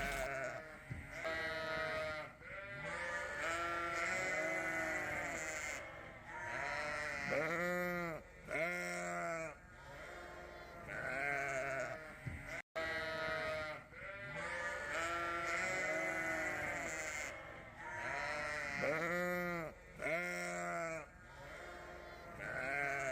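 Sheep bleating, many calls in a row, some overlapping, each rising and falling in pitch. After a brief break about halfway through, the same run of bleats seems to play again.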